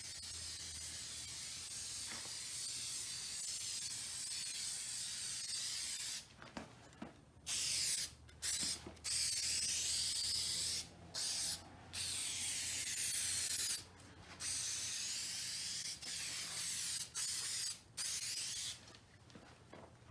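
Aerosol can of 3M Super 77 spray adhesive hissing as it coats carpet and the inside of a steel cabinet door. One steady spray lasts about six seconds, then about nine shorter sprays follow, from under a second to about two seconds long, with brief pauses between.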